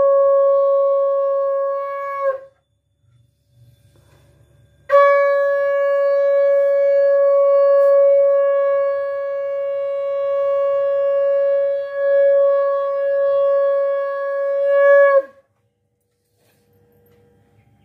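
Conch shell (shankha) blown during a puja, in two long steady blasts. The first fades out a couple of seconds in. After a short pause the second is held for about ten seconds, swells near its end and drops in pitch as it cuts off.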